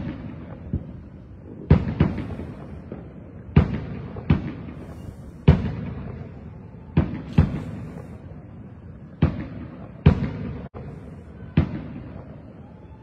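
Fireworks exploding, about a dozen sharp bangs at uneven intervals of one to two seconds. Each bang trails off in a rumble.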